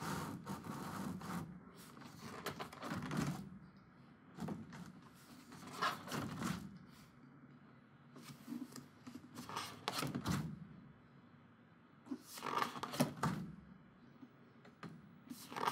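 Paper calendar pages being handled and flipped: irregular rustles and light scrapes every second or two.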